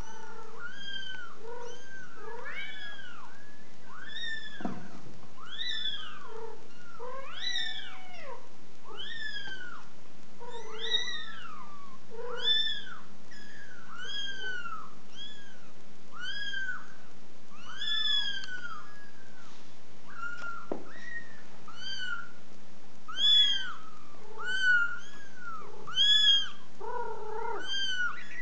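Very young kittens mewing: a steady stream of short, high-pitched, arching mews, one or two a second and sometimes overlapping, with a few lower calls among them and the loudest bunch near the end.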